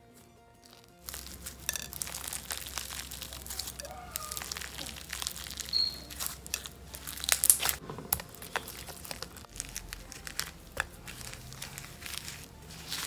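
Dense crinkling and crunching made of many small crackles and clicks, starting about a second in: hands working and squishing a hard slime mixed with water and pad filling.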